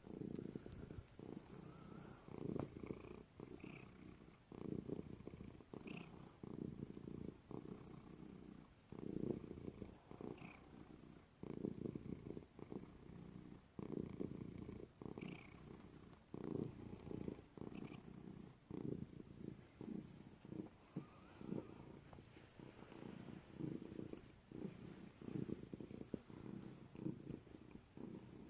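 Domestic cat purring close up, a low rumbling purr in repeated swells with each breath.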